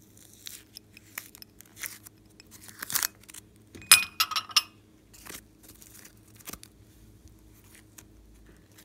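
Hands handling foam craft pieces on plates: rustling and scraping, with a brief cluster of sharp clicks about four seconds in.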